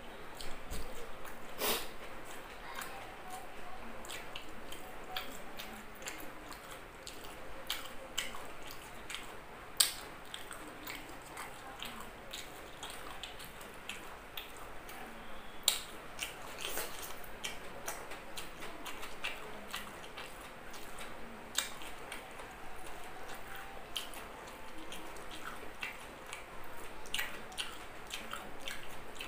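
Close-up eating sounds: chewing and wet mouth clicks as rice and grilled pork jowl are eaten by hand. Two sharper clicks stand out, about ten and sixteen seconds in.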